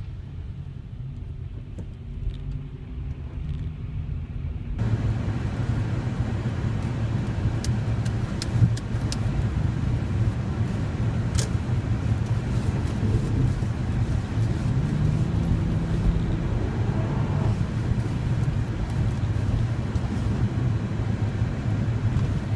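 Cabin sound of a 2005 Honda Pilot driving: steady engine and road rumble with scattered light clicks. The sound steps up suddenly to a louder, brighter road noise about five seconds in.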